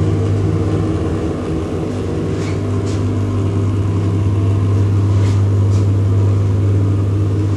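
A steady low mechanical hum, a drone with several pitched lines, with a few faint clicks partway through.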